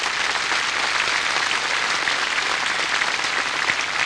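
A large open-air crowd applauding: dense, steady clapping from thousands of hands.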